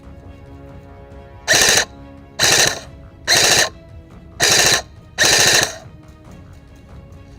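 Airsoft gun firing five short full-auto bursts, each a rapid rattle of shots about a second apart, over background music.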